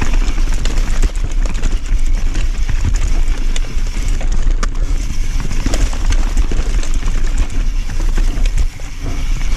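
Mountain bike riding fast over a rough dirt trail: a steady rumble and rattle of tyres, chain and frame, broken by sharp knocks as the bike hits bumps, heard from a camera mounted on the rider.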